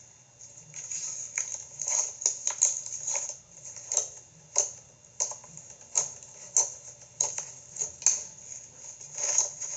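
Butter slime being poked and squeezed by hand, making irregular sticky clicks and pops, sometimes a few in quick succession.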